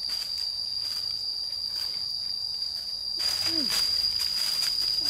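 Insects shrilling in one steady high-pitched tone, with rustling starting about three seconds in.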